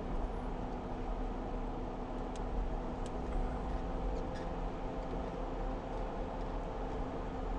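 Jeep engine running steadily at low revs, its pitch unchanging, with a few faint ticks about halfway through.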